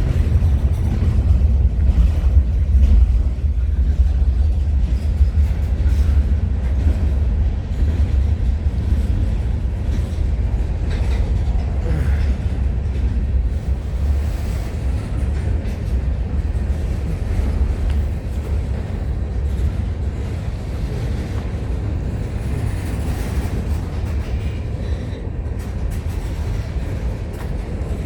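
CN freight train rolling past, a steady low rumble of the cars on the rails that eases slightly toward the end.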